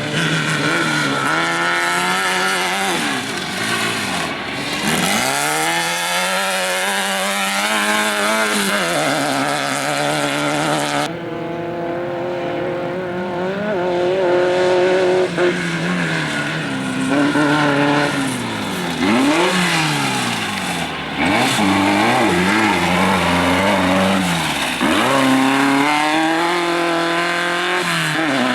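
Off-road race vehicle engines revving hard and easing off, the pitch climbing and dropping again and again as the vehicles accelerate and pass. The sound changes abruptly twice, about a third and two thirds of the way through, as one vehicle gives way to another.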